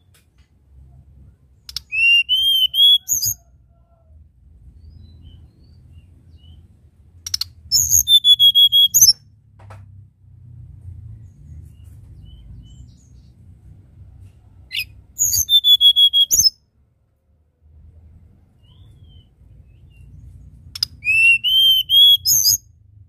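Caged male tledekan gunung, a blue flycatcher, singing four short phrases of clear, upward-sliding whistled notes, one about every six seconds.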